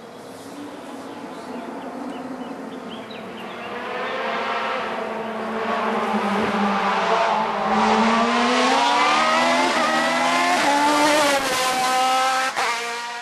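A racing car's engine revving hard up the hill, growing louder over the first several seconds, then its pitch repeatedly climbing and dropping as it shifts through the gears.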